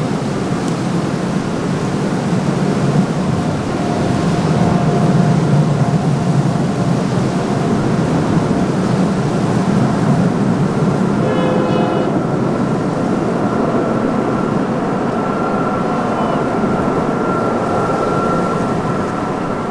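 Jet engines of a Boeing 777-200ER airliner on landing approach: a steady roar with a thin whine, loudest about five seconds in.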